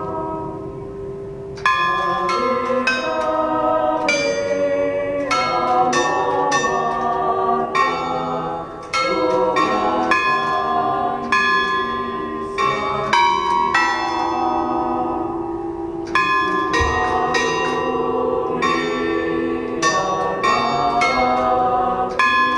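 Bronze bells hung on a steel monument ringing a melody of different notes, struck one after another and sometimes several a second, each note ringing on. There are short lulls where the ringing dies away, near the start and about two-thirds of the way through.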